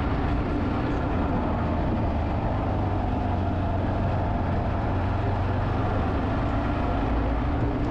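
Yamaha XT660Z Ténéré motorcycle's single-cylinder four-stroke engine running at a steady speed on the move, over a steady rushing noise.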